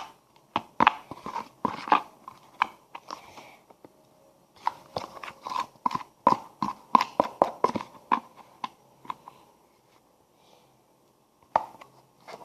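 Flour-and-detergent slime being mixed in a pot: quick runs of short, wet, sticky clicks and squelches, with a pause of about two seconds before a few more near the end.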